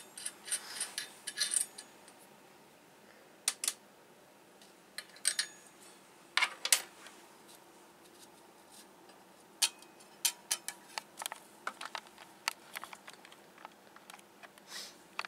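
Irregular small metallic clicks and clinks from hands adjusting parts on a homemade record lathe's metal frame and cutting arm.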